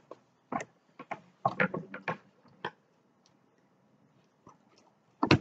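A cardboard shipping box being handled and opened by hand: scattered short clicks and taps, a cluster of them about a second and a half in, and a louder knock near the end.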